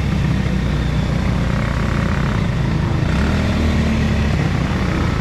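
ATV engine running steadily at riding speed, its low note shifting pitch a little about halfway through.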